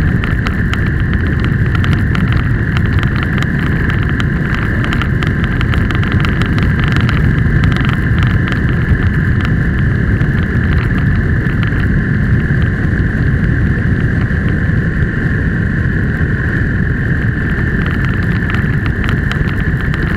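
Steady rumble of wind and road noise at a vehicle-mounted camera travelling at road speed, with a constant high hum running over it.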